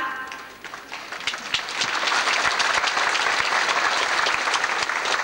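Large crowd applauding, the clapping building up about a second in and then going on steadily.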